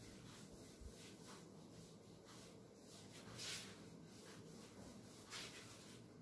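Faint swishes of a whiteboard duster wiping marker off a whiteboard, in several strokes, the clearest about halfway through and another near the end.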